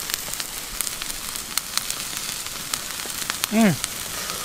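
Campfire crackling: sharp irregular pops over a steady hiss. About three and a half seconds in, a short human vocal sound falls in pitch.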